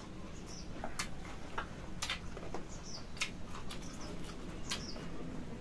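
Two people eating a mixed salad by hand at close range: chewing, sharp mouth clicks and smacks about once a second, and a few faint high chirps.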